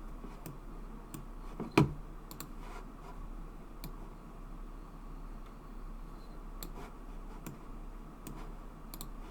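Scattered clicks of a computer mouse as parts are dragged and selected on screen, with one louder knock about two seconds in, over a low steady hum.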